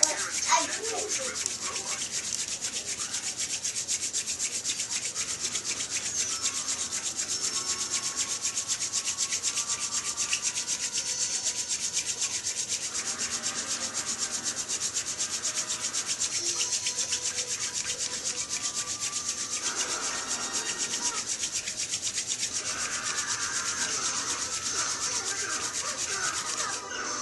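Hand-drill friction fire: a still-green white yarrow spindle spun between the palms on a white pine root hearth, giving a steady fast rubbing with a faint squeaky tone coming and going.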